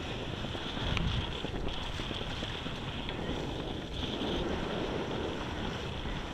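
Wind buffeting the microphone over the steady rush of water along the hull of a sailboat under sail, with a faint knock about a second in.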